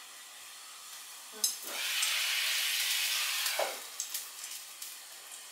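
Chicken frying in a pan in a soy sauce, mirin, garlic and ginger sauce: a faint steady sizzle that swells into louder sizzling for about two seconds, starting just after a click about a second and a half in. A few light clicks follow near the end.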